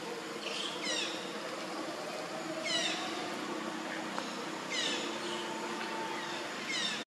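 A high, falling chirping call, heard three times about two seconds apart, over a steady background hum. The sound cuts off suddenly just before the end.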